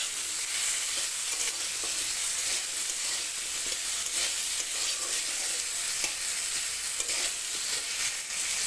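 Potato cubes sizzling steadily as they fry in mustard oil in a metal kadai, with a metal spatula scraping against the pan now and then as they are stirred.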